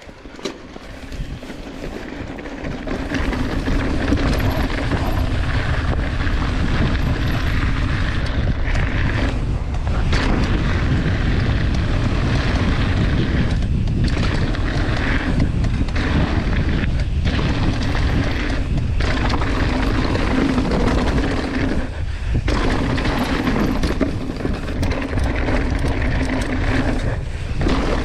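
Wind buffeting the camera microphone and tyres rattling over loose gravel as an enduro mountain bike descends a trail at speed, building over the first few seconds as the bike picks up pace.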